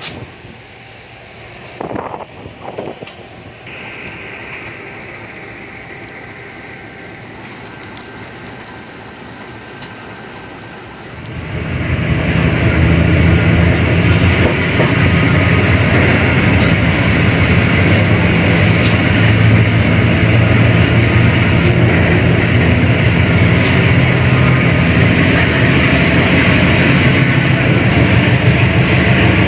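Passenger train pulling away, heard from inside a coach's closed vestibule: fairly quiet at first with a few knocks, then about a third of the way in the running noise swells into a loud, steady rumble and rattle with a click every couple of seconds as the train gathers speed.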